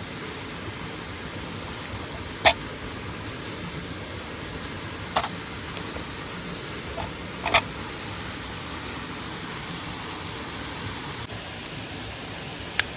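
Steady rush of water from a mountain stream and waterfall, with four sharp snaps, the loudest about two and a half seconds in.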